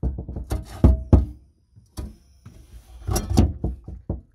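A series of knocks and thumps as a small ice tank is handled and set down in a car's trunk, with a brief faint hiss about two seconds in.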